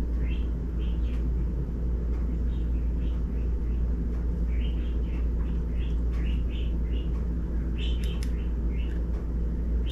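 Birds chirping in short high calls, scattered through the stretch, over a steady low rumble.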